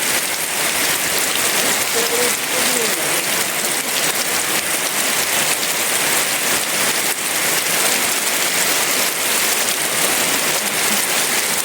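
Heavy rain falling steadily, a dense even patter.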